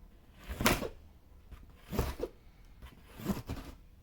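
A knife slicing through the packing tape and cardboard of a shipping box: three short rasping strokes, about a second and a half apart, the second one doubled.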